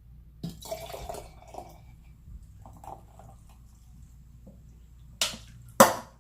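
Wet mouth sounds of someone eating fried rice: soft chewing and smacking, then two short sharp sounds near the end, the second the loudest.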